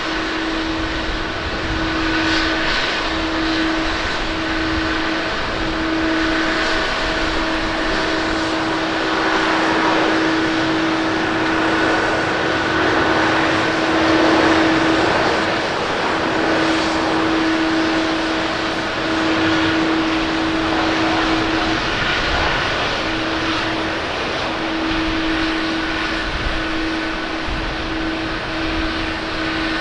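Boeing 787-9 Dreamliner's Rolls-Royce Trent 1000 turbofans at take-off thrust through the take-off roll and lift-off. The noise is loudest about halfway through as the jet passes, with a steady hum underneath.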